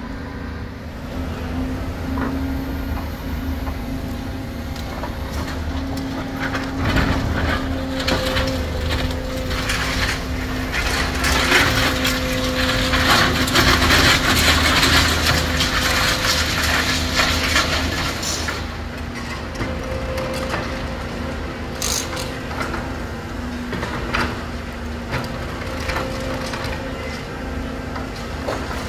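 Volvo high-reach demolition excavator's diesel engine running steadily while its hydraulic crusher jaws crunch and crack concrete rubble. The crunching and cracking is loudest through the middle, with one sharp crack about three quarters of the way through.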